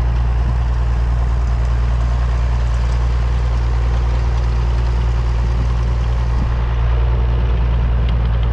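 Tractor engine running steadily, pulling a Hesston 565A round baler through the hay, a loud low drone that holds even.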